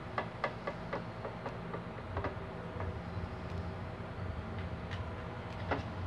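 A small paintbrush scrubbing dust off the stator of an Arno Silence Force fan motor, with light, irregular clicks and taps as the brush and hands knock against the motor parts, over a steady low hum.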